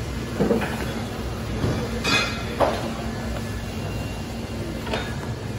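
Wire shopping cart rolling and rattling, with several short clanks, the loudest about two seconds in, over a steady background hum.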